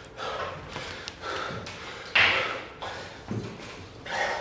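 A man breathing hard during a hard training effort, with forceful exhales, the loudest about two seconds in, and a few dull thuds.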